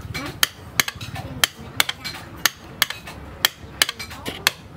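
Steady hammer blows, about three a second, each a sharp ringing strike, driving a hot tang into a wooden knife handle.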